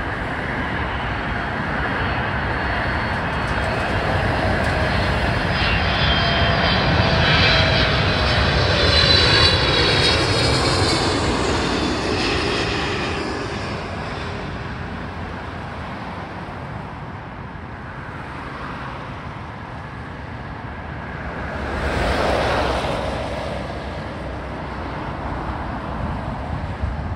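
Boeing 777-300ER's GE90 turbofan engines on final approach, passing low overhead: the jet noise builds, with a high whine and a tone that drops in pitch as the aircraft passes, then fades away. A shorter swell of noise rises and falls about three-quarters of the way through.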